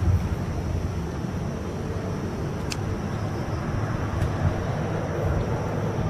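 Wind buffeting the microphone in a steady low rumble, with a couple of faint sharp ticks about a third and two-thirds of the way through.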